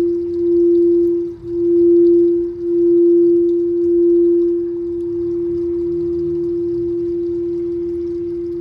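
Quartz crystal singing bowl sounding one sustained pure note. It swells and dips about once a second for the first half, then holds steadier and slowly fades.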